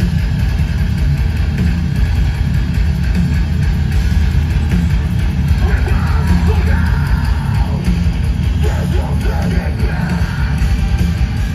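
Heavy metal band playing loud and live: distorted guitars, bass and drums with a heavy low end, and a vocalist yelling and singing over them from about halfway through.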